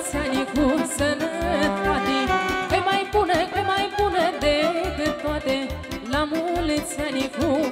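Instrumental break in a Moldovan table hora played by a live party band: an ornamented folk melody over a steady bass beat, between sung verses.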